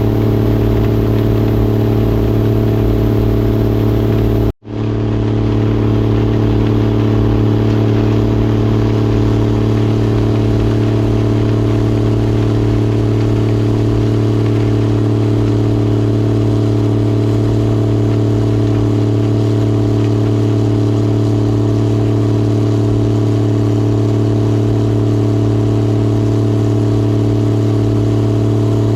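Engine of harvest machinery running steadily at constant speed, a loud even hum that never changes pitch. It cuts out completely for an instant about four and a half seconds in, then comes straight back the same.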